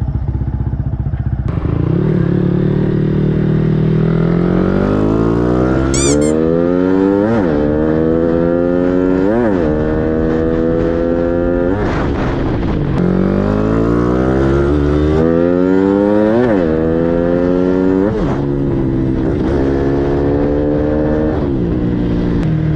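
Modified Yamaha Exciter motorcycle with a 65+4 big-bore build, heard from the saddle as it pulls away and accelerates hard. Its loud exhaust note climbs through each gear and drops sharply at every shift, with quicker shifts near the end.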